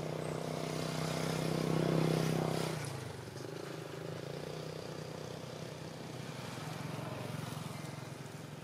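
A motor engine running steadily with an even hum, loudest for the first three seconds, then dropping and carrying on more faintly.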